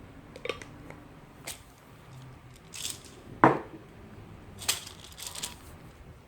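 Short clicks, rustles and knocks from objects being handled, about six in all. The loudest is a knock about three and a half seconds in.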